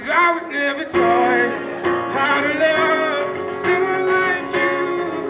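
Live acoustic song: a man sings through a microphone while two acoustic guitars play along.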